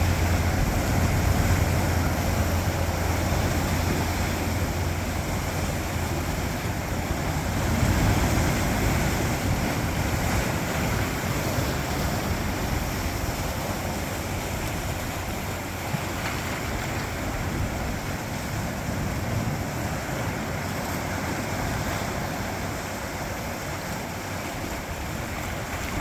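Sea surf washing over coastal rocks: a continuous rushing wash that swells louder near the start and again about eight seconds in. Wind rumbles on the microphone, strongest in the first several seconds.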